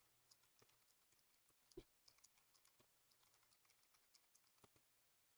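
Faint, scattered clicks of keys on a mechanical keyboard, with one louder knock about two seconds in.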